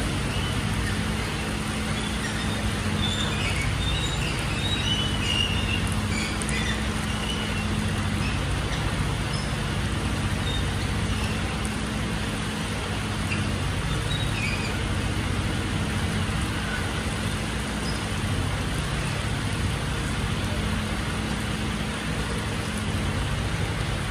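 Mercedes-Benz Actros garbage truck's diesel engine idling steadily, with the hiss of rain on wet pavement.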